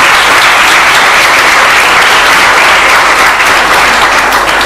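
Audience applauding loudly and steadily, beginning to die away near the end.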